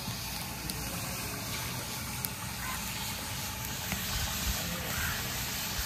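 Chicken korma simmering in a large metal degh over a fire, a steady hiss with no clear strokes or beats.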